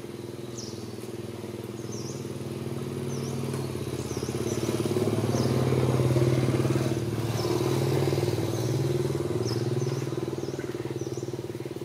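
An engine running steadily, growing louder to a peak about six seconds in and then easing off. Faint short high chirps repeat throughout.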